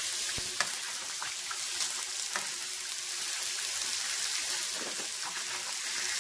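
Ground-beef patties frying in hot oil in a pan: a steady sizzle with scattered sharp pops of spattering oil.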